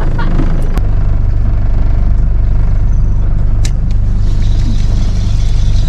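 Engine running with a steady low drone; the sound changes abruptly about a second in, then runs on evenly.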